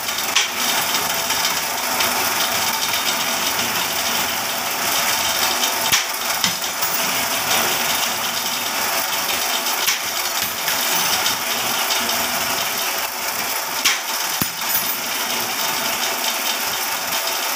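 Motor-driven wire-bending machine running steadily with a continuous mechanical whir and rattle. A few sharp metallic clicks come through, once near the start, once about six seconds in and once about fourteen seconds in.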